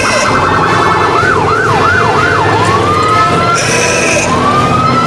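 Emergency-vehicle siren going off: four quick rising-and-falling yelps, then long slowly rising wails. Under it, engines run steadily.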